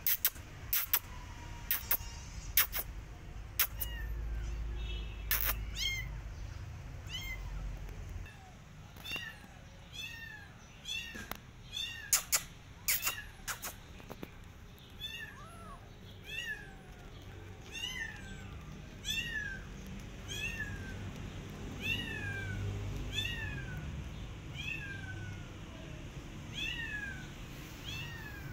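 Kitten meowing over and over in short, high-pitched cries, a little more than one a second, starting about nine seconds in. Several sharp clicks come before and among the first cries.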